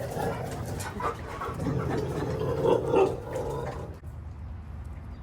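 Dog barking and whining: several short pitched calls over about four seconds, then it stops.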